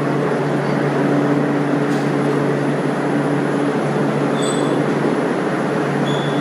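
Electric arc furnace running: a loud, steady, crackling noise over a low electrical hum.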